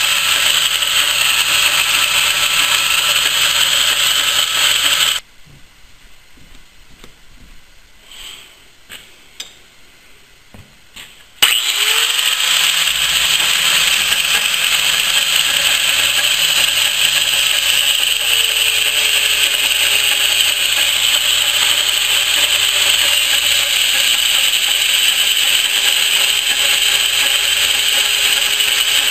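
Angle grinder with a cutoff wheel, mounted on a lathe, running and cutting into a splined steel shaft turning in the lathe. About five seconds in it cuts off suddenly, leaving only a few faint clicks. About six seconds later it starts up abruptly and runs steadily again.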